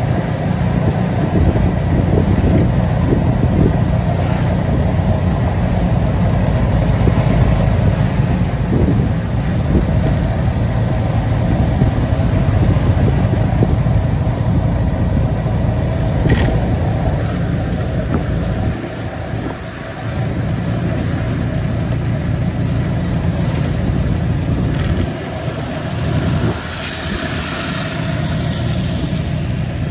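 Motor vehicle running with a steady low rumble, easing off briefly twice.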